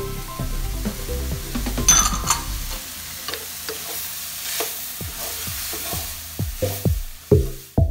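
A flat spatula stirring and scraping chopped cabbage, capsicum and spring onions around a kadai, with a light sizzle of the vegetables frying on low heat. Electronic music with a drum beat comes in near the end.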